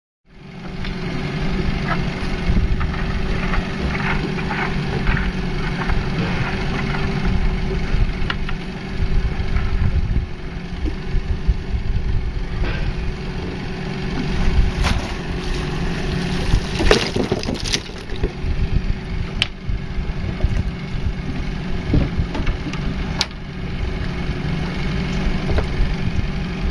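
Idling boat engine humming steadily while oyster tongs work, with scattered sharp knocks and clatters of the tongs and oyster shells, a few louder ones in the second half.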